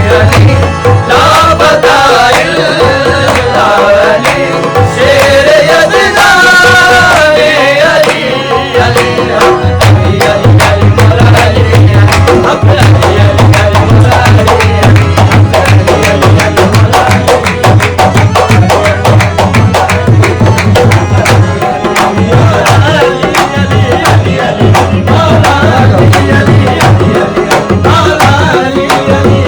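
Live qawwali music: tabla drumming keeps a fast, steady beat under a melodic line that bends up and down for the first eight seconds or so. After that the rhythm carries on with dense, rapid strikes.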